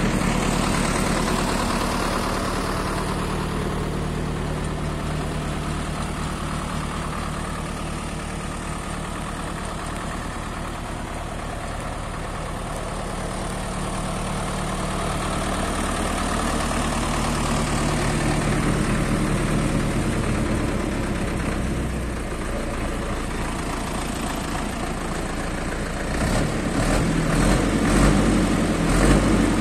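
Ursus C-362 tractor's diesel engine idling steadily. About four seconds before the end it gets louder and rougher, with irregular knocks.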